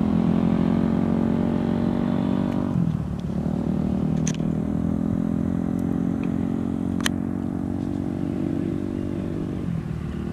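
Dirt bike engine running with a steady note that dips briefly about three seconds in and shifts again near the end.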